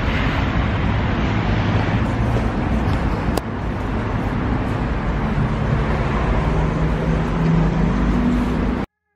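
Street traffic noise: a steady wash of passing cars and engines, which cuts off abruptly near the end.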